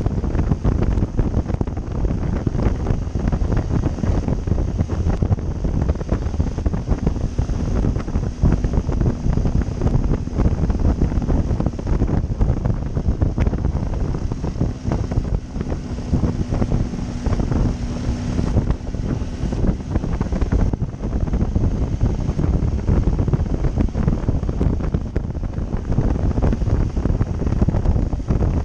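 Heavy wind buffeting on the microphone of a moving Triumph Tiger 800 motorcycle, with a faint steady hum through the middle from its three-cylinder engine.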